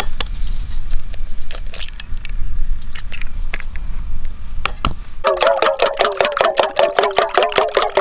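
Eggs being cracked against a stainless steel bowl, a few sharp clicks. From about five seconds in they are beaten with a fork in the bowl: fast, even clinking at about six strokes a second, with the metal bowl ringing at each stroke.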